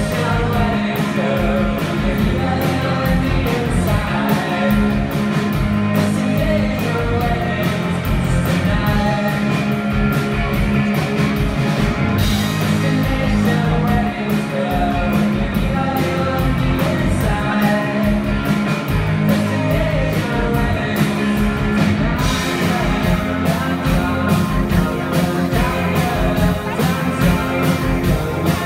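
Live rock band playing a song: electric guitar, bass guitar and drums with a steady beat, and a man singing lead vocals.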